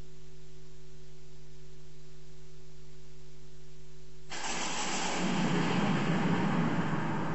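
Steady electrical hum with a few low held tones. About four seconds in it cuts suddenly to a loud hiss and rumble, the background noise of an old video recording.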